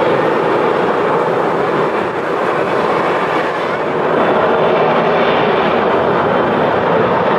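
Jet airliner engines running, a loud steady roar with a faint whine in it.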